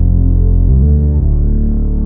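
Background music: sustained chords over a deep bass, shifting to new chords twice.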